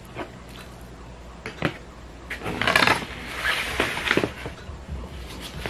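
Close-miked eating sounds: a plastic spoon scraping and clicking in a paper bowl of rice. There are a few short clicks and a longer, louder scrape about halfway through.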